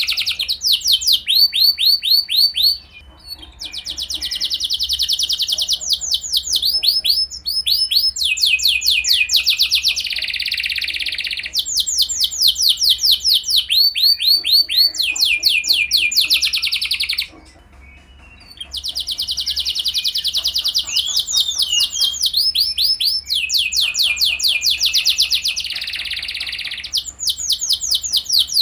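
Domestic canary singing long trills: runs of rapid repeated notes, one phrase after another, with a brief pause about three seconds in and another just past halfway.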